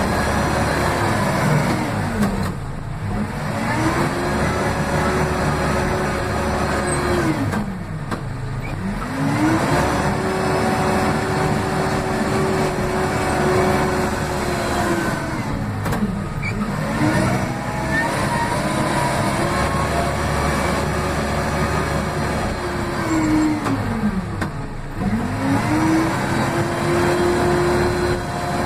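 Case 580M backhoe loader's diesel engine running at high revs, loud. About four times the revs drop sharply to near idle and climb straight back up, as the throttle is eased and pressed again during front-bucket work.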